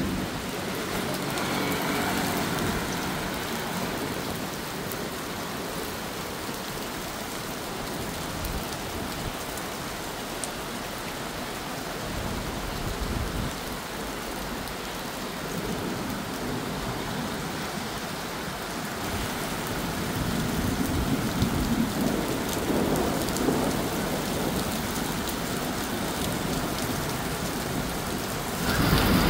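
Thunderstorm: steady rain with long, rolling thunder rumbling beneath it, swelling loudest about two-thirds of the way through.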